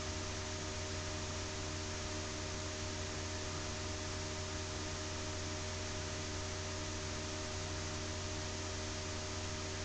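Steady low electrical hum with a constant hiss, the recording's background noise. No other sound stands out.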